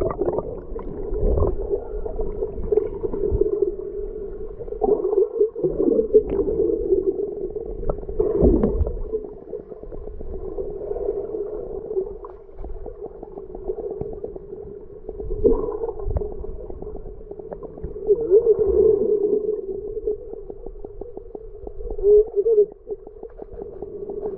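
Muffled underwater sound picked up by a submerged camera: a steady low hum with water movement and a few dull bumps, one about a second in and another about eight seconds in.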